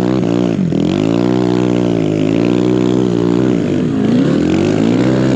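Kawasaki KLX140 dirt bike built up to 170 cc with a BBR D3 exhaust, its single-cylinder four-stroke engine running hard under load in deep snow. The revs dip briefly and climb back about a second in, then again more slowly about four seconds in.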